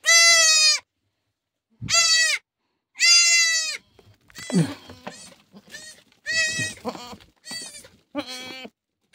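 A newborn goat kid bleating again and again in loud, high-pitched cries, with a few softer and lower bleats among them in the second half.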